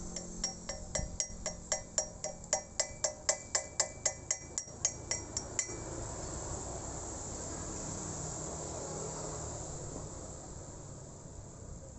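Rapid, even series of ringing metallic taps, about four or five a second, that stop about six seconds in, followed by a faint steady hiss.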